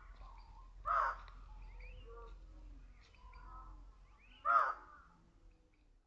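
Bird calls: two loud, harsh calls, about a second in and again about four and a half seconds in, with softer short calls between them.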